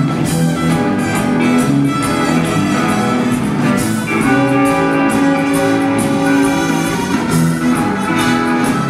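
Live rock band jamming loudly: electric guitars and a drum kit keep a steady beat while trumpets play held notes.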